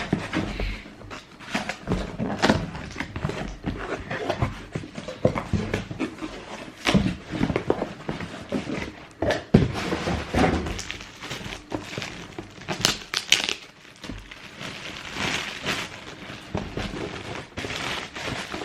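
Cardboard shoebox being handled and opened: irregular knocks, scrapes and rustling.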